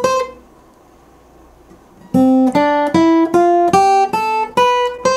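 Acoustic guitar played note by note with the other strings muted by both hands. The first phrase is cut off cleanly about a quarter second in, with no strings left ringing, then a second run of about eight picked single notes starts about two seconds in, at roughly two to three notes a second, with the last note left to ring.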